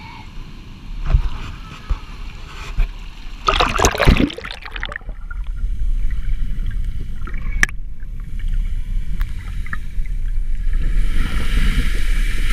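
Seawater sloshing and splashing against a camera held at the surface of a rocky ocean pool, with one loud splash about four seconds in. The camera then goes under, and the sound turns to a muffled low rumble of churning water, with a rising rush of surging white water near the end.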